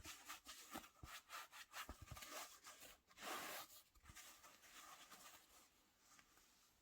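Rustling and light tapping from close-up handling of the shoes and their packaging, busiest in the first few seconds with a longer, louder rustle about three seconds in, then dying down to faint rustling.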